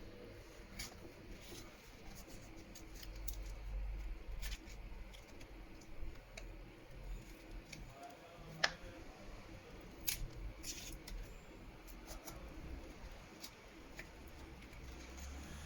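Scattered small clicks and scrapes of a plastic card working under a phone's glued back cover, cutting the adhesive. The sharpest click comes a little past halfway.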